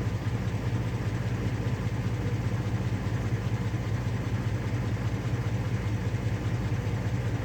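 Dodge Ram pickup engine idling steadily with an even low pulse, running on a failing fuel pump that has been revived by tapping the tank.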